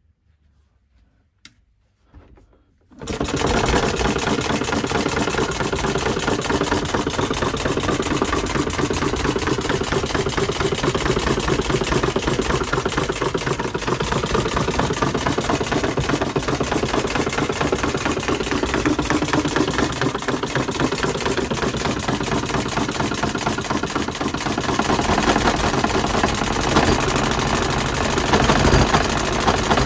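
Model Atkinson-cycle internal-combustion engine catching about three seconds in and then running fast with a loud, rapid, steady clatter of firing strokes and rattling linkage, getting a little louder near the end. The rattle is that of an engine whose piston ring and valves have yet to bed in.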